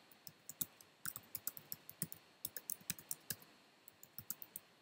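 Computer keyboard keys clicking faintly and irregularly as a line of code is typed, with a short pause in the typing about three and a half seconds in.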